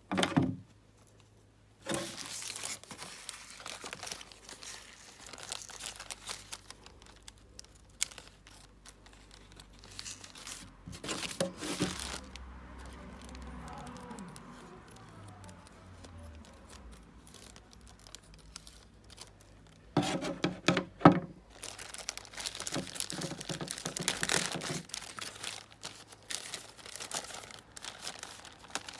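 Thin plastic bag crinkling and rustling as it is handled, cut open with scissors and its contents pulled out, in irregular bursts, the longest and loudest from about two-thirds of the way in.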